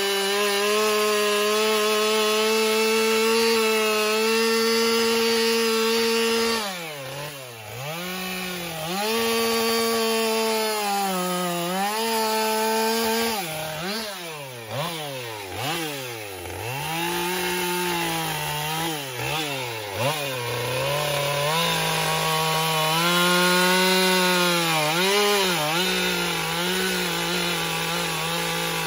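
Husqvarna two-stroke chainsaw carving wood, held at steady high revs for about six seconds, then dropping and rising again many times as the throttle is eased off and squeezed between cuts, and running steadily high again later on.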